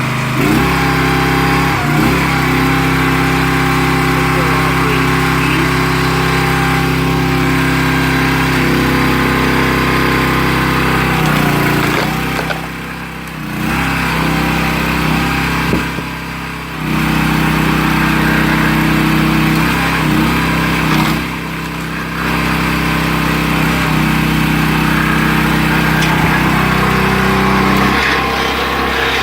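Loncin engine on a 22-ton log splitter running steadily. Its note shifts several times, and the level dips briefly three times, about 12, 16 and 21 seconds in.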